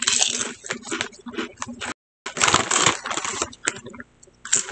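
A man chewing Lay's potato chips close to the microphone: dense, irregular crackling crunches, with the sound cutting out completely for a moment about two seconds in.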